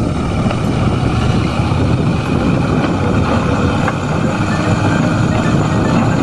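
Light dump truck's engine running steadily as its hydraulic hoist raises the bed and tips out a load of soil.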